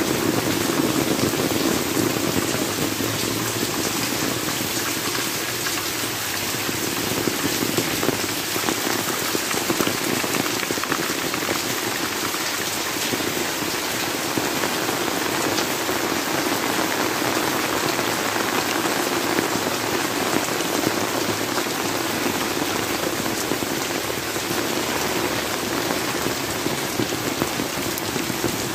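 Heavy tropical rain falling steadily, a constant dense hiss of drops on leaves, plants and wet ground.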